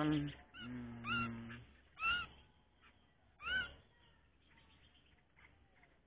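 Yellow-vented bulbul held in the hand, giving four short harsh calls, each rising then falling in pitch, spread over the first few seconds.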